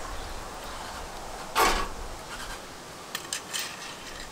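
Rotisserie spit and its metal fork being handled: one short scrape about one and a half seconds in, then a few light clicks as the fork is slid along the spit rod into the chicken.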